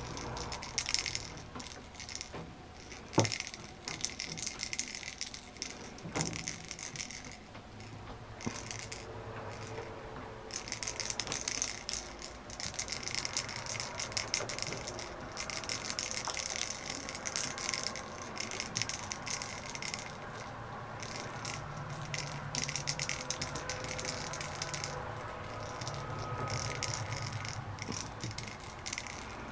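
A hollow plastic ball toy on a wand rattling in irregular bursts as a kitten bats at it and the wand jiggles it, with two sharp knocks in the first several seconds.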